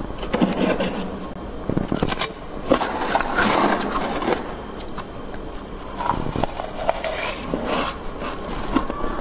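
Metal spoon scraping and scooping thick frost off the inside walls of a freezer, in irregular bursts of scraping with sharp clicks.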